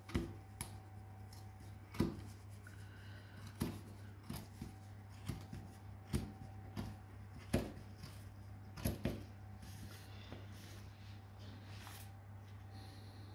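Scissors snipping in short, irregular cuts, trimming a macramé leaf's cotton-cord fringe to shape around a paper leaf template. The sharp snips stop after about nine seconds and give way to softer rustling over a steady low hum.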